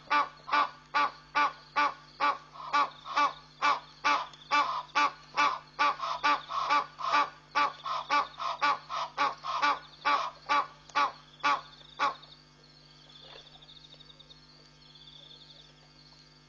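An animal giving a long, even series of short honking calls, about two a second, which stops abruptly about twelve seconds in. Faint high chirring is left after it.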